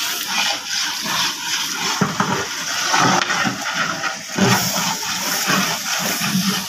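Liquid sloshing in a large aluminium cooking pot (degh) as a long ladle stirs the chopped vegetables, in irregular swishes over a steady rushing noise.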